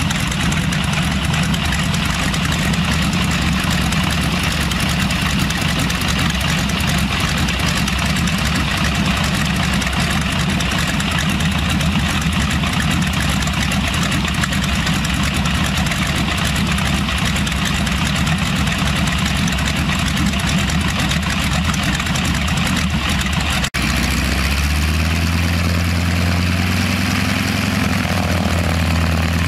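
Boeing Stearman biplane's radial engine idling on the ground, propeller turning. About three-quarters of the way through, the engine note changes abruptly to a deeper, smoother drone.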